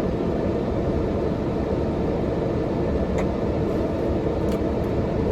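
Car air conditioning blowing hard inside the cabin: a steady rushing of air, with a couple of faint ticks partway through.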